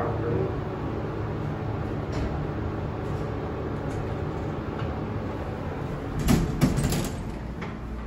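Elevator car running with a steady low hum, then a loud clatter of the sliding doors opening about six seconds in.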